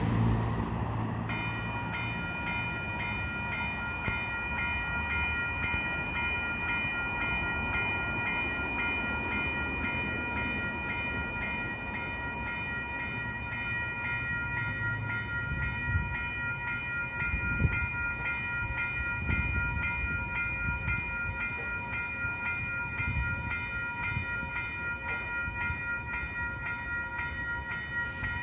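Electronic railroad crossing bell starting about a second in and ringing over and over, a steady repeated ding, as the crossing activates to warn of an approaching train or trolley. Low street-traffic rumble underneath, loudest at the start.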